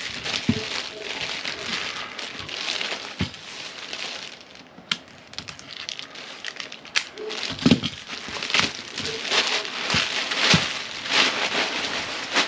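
Clear plastic packaging bags crinkling and rustling as they are handled and pulled off a kayak paddle, with a few soft knocks.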